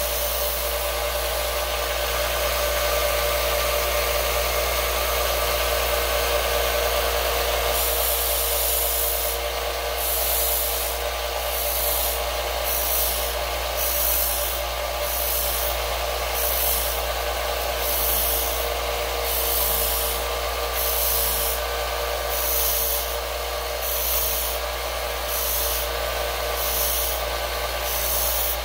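Small benchtop belt sander running steadily with a constant motor hum, a screwdriver being ground on its belt. From about eight seconds in, the grinding hiss rises and falls about once a second as the piece is stroked across the belt.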